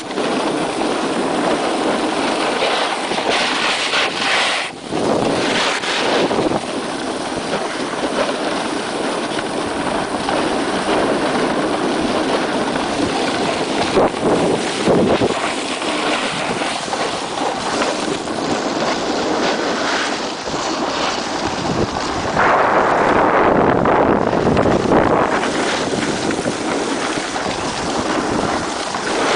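Wind rushing over a handheld camera's microphone while snowboarding downhill, mixed with the scrape of the snowboard sliding over packed snow. The rush swells louder in stretches, most of all for a few seconds about three quarters of the way in.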